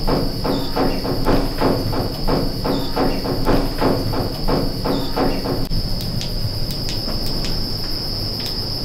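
Crickets chirping in a steady high trill. Over it, a low, buzzy pulsing sound repeats about three times a second and stops suddenly about six seconds in.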